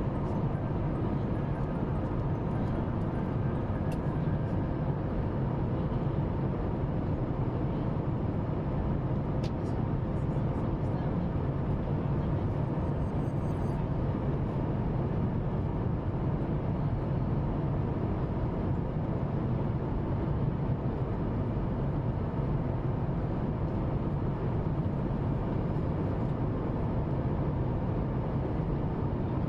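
Steady rush of engine and airflow noise heard inside the cabin of a Singapore Airlines Boeing 737 MAX in flight, deep and even, with a faint steady hum above it.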